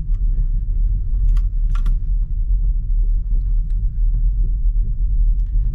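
In-cabin rumble of a BMW X3 M Competition crawling over a rough, rocky track, its very stiff suspension and 21-inch wheels jolting over the stones. Two sharp clicks come about a second and a half and two seconds in.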